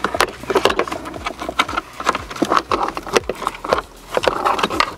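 Thick wiring-loom cable being pushed and fed behind plastic dashboard panels: irregular rustling, with many sharp clicks and knocks of cable and hands against the plastic trim.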